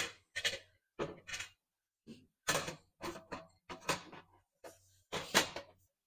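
Metal clunks and rattles of a portable gas stove's windproof panel and pot-support grate being fitted and pressed into place: a series of separate knocks, the loudest about five seconds in.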